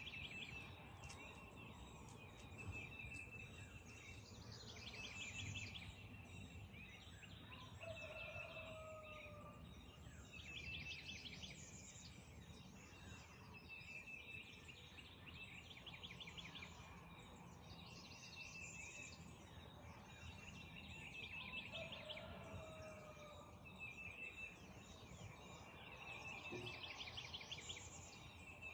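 Faint dawn chorus of wild birds: several songbirds repeating short high trilled songs every few seconds, and twice a lower, falling call from another bird.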